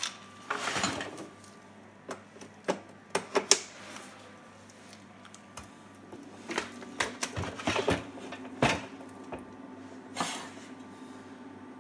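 Small steel screws clinking and sharp clicks from parts handled on a workbench, including a powerCON mains plug being fitted to an LED batten light. About six and a half seconds in, a faint steady hum starts as the fixture is powered.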